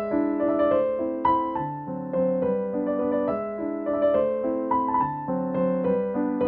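Background instrumental music: a gentle melody of notes changing about every half second over held chords.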